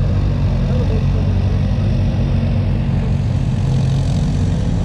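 Off-road vehicle engine running steadily at a low, even speed.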